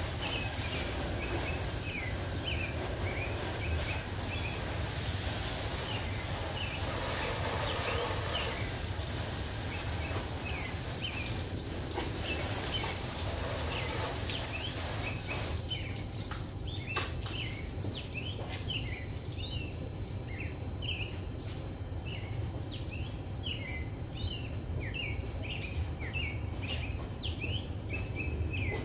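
Garden hose spray nozzle hissing as it rinses soapy water off a car's front end, stopping about halfway through. Small birds chirp rapidly throughout over a steady low rumble.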